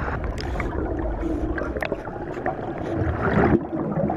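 Underwater sound recorded by a diver's camera in a river: a steady low rumble with gurgling and a swell of noise about three seconds in.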